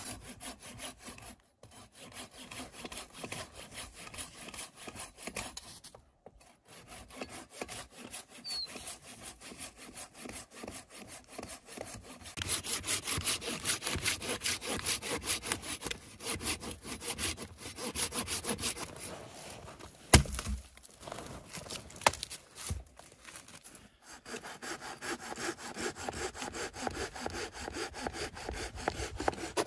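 Hand saw cutting through dead wood of a fallen conifer in steady back-and-forth strokes, getting louder about twelve seconds in. One sharp knock comes about twenty seconds in.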